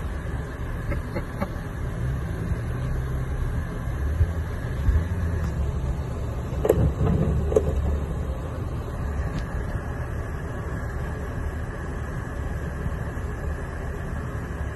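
Off-road vehicle's engine running low and steady while crawling through deep snow, heard from inside the cab, with a couple of knocks about seven seconds in.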